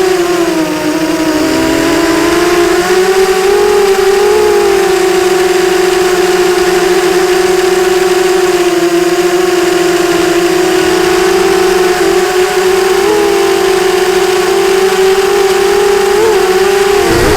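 Sunnysky 2207 brushless motors and propellers of a ZMR 250 racing quadcopter whining steadily in flight. The pitch dips briefly about a second in, then rises and falls slightly with throttle.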